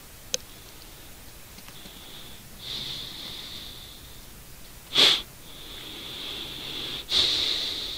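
A person breathing close to the microphone: a hissy breath about three seconds in, a sharp sniff about five seconds in, then a longer, louder breath near the end. A single short click sounds near the start.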